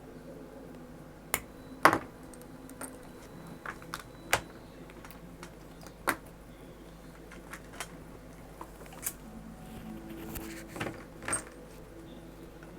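Small tools and parts being handled on a workbench during soldering-iron handle repair: irregular sharp clicks and taps, the loudest about two seconds in.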